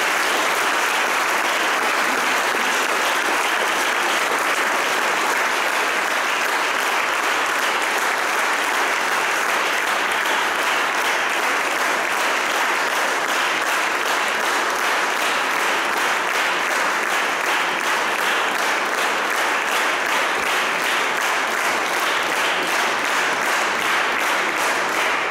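Audience applauding steadily, a dense, unbroken clapping from many hands.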